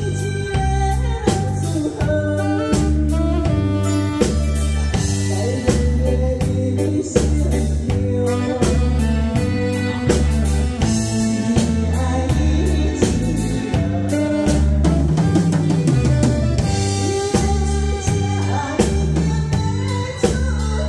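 A woman singing through a microphone over a live band accompaniment with a steady drum beat and bass line.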